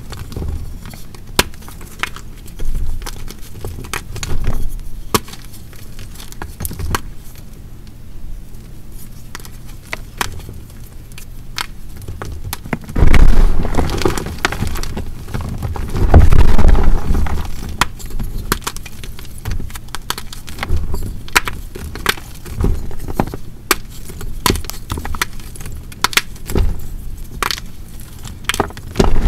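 Dried BSN gym chalk heart being crushed and crumbled, with a steady run of crisp cracks and crackles and two heavier, louder crunches about thirteen and sixteen seconds in.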